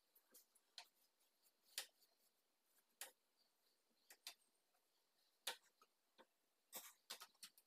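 Near silence broken by about a dozen faint, sharp clicks and scrapes at irregular intervals, more of them near the end: a paint brush tapped and drawn across a painted ceiling panel.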